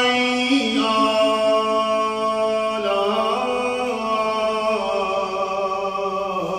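A male reciter chanting the Quran in melodic tajweed style. He draws out one long unbroken vowel, holding steady notes that step up and down in pitch.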